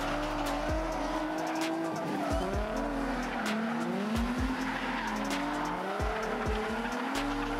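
Two drift cars sliding in tandem: engines revving up and down against each other, tyres squealing, with occasional sharp cracks.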